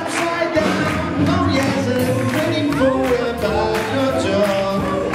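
Swing band playing an up-tempo number with a singer, and the crowd clapping along on the beat.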